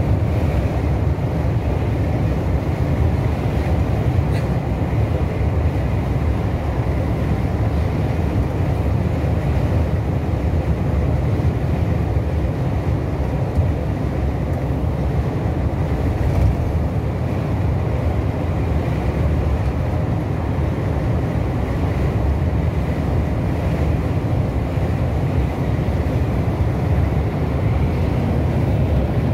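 Coach cruising on a motorway, heard from inside the cabin: a steady low rumble of engine and tyre noise that does not change.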